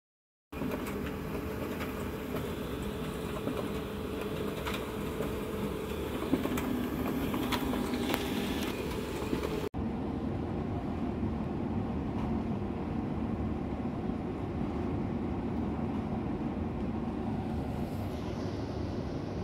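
Steady indoor ambient noise, a low rumble with a faint hum and hiss, with a few light clicks in the first half. It breaks off for an instant just before halfway and resumes with less hiss.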